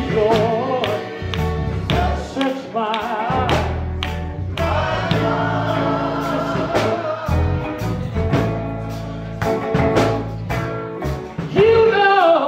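Male gospel vocal group singing: a lead voice with a wavering vibrato over backing harmonies, accompanied by guitar and drums.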